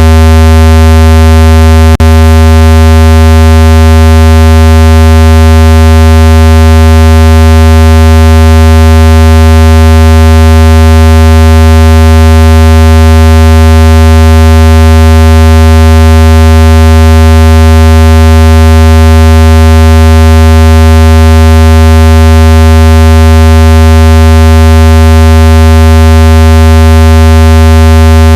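Very loud, steady, low buzzy tone of a speaker-cleaner sound effect, used to shake water and dust out of a phone speaker. It holds unchanged throughout, with one brief click about two seconds in.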